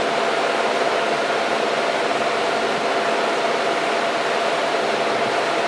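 Ransome power rotate-and-tilt welding positioner's drive motor running steadily as the table turns, a constant whir with a held mid-pitched whine.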